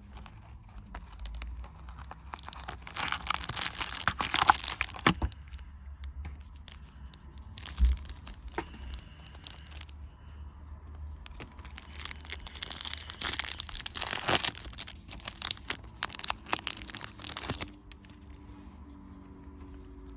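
A Yu-Gi-Oh booster pack wrapper being torn open and crinkled, in two long bouts of crackly rustling with a few sharp clicks.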